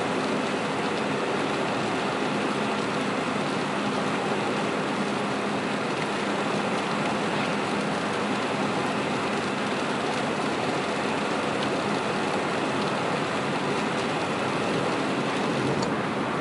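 Steady rush of heavy rain and tyres on a wet road, heard from inside a moving car's cabin.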